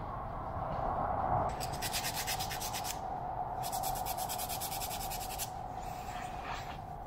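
A small wooden block being hand-sanded on sandpaper: two runs of quick back-and-forth scratching strokes, each about a second and a half long, then a few softer strokes. A steady hum runs underneath.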